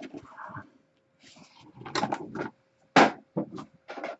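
Trading card packaging being handled: short scrapes and rustles, then a sharp snap about three seconds in, followed by a few lighter clicks.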